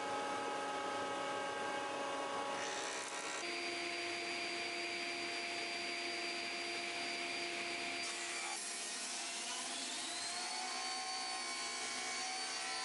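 Thickness planer running as a board feeds through. About three seconds in it gives way to a sliding table saw running steadily while ripping a board lengthwise, its whine rising in pitch about nine seconds in.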